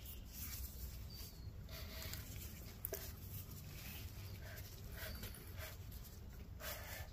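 Faint rustling, scraping and light taps of hands working on a bare engine block, with one sharp click about three seconds in, over a low steady hum.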